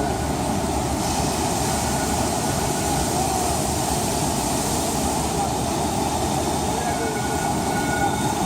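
A Houston METRORail light-rail train running steadily, with people talking.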